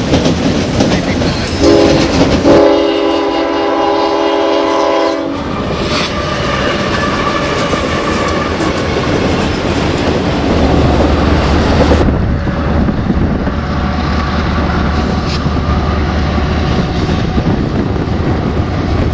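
A train passing close, its wheels clattering steadily over the rails; a couple of seconds in, the locomotive's horn sounds one blast of about three seconds, several notes at once.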